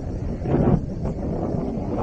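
Wind buffeting the microphone: a low, rumbling rush that swells about half a second in.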